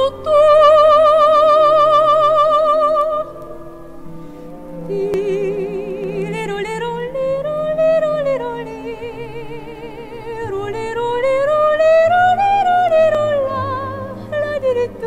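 Vinyl record playback of a vocal piece: an operatic singer with wide vibrato holding long notes in phrases that rise and fall, over a little piano.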